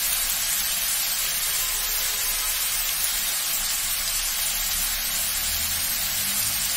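Diced papaya and potato frying in oil in a metal pan, a steady sizzle.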